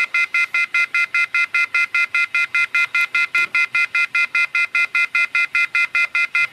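Gate intercom call box beeping: a fast, even run of short electronic beeps, about five or six a second, with no answer coming through.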